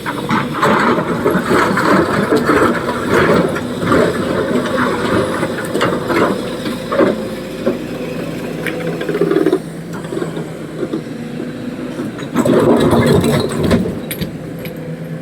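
Diesel engine of a quarry excavator running steadily under load, with irregular clattering knocks through the first half and a louder burst of clatter about twelve seconds in.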